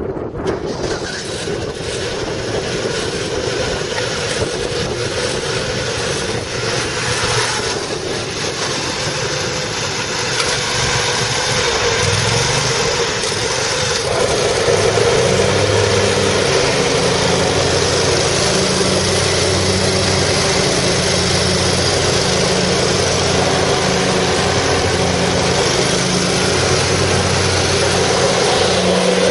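Kohler Command 25 hp engine of an Exmark Lazer Z zero-turn mower running steadily just after start-up. About halfway through, its note changes and a steadier low hum sets in.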